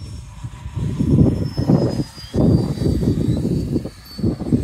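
Freewing F-18 electric ducted-fan RC jet flying high overhead, its fan whine faint and slowly falling in pitch. It sits under a louder gusty rumble, typical of wind on the microphone, that swells and drops several times.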